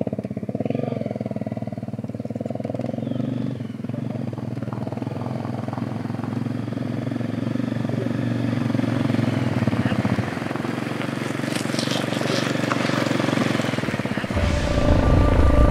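Honda CRF 250 Rally's single-cylinder four-stroke engine idling, then pulling away and riding toward and past, growing louder as it nears. Background music comes in near the end.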